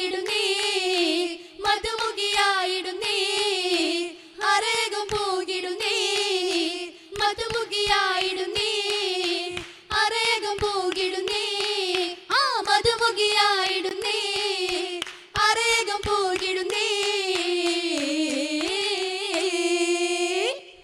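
Girls' voices singing a Malayalam Oppana song in phrases with short breaks, accompanied by rhythmic handclaps, ending on a long held note that stops abruptly.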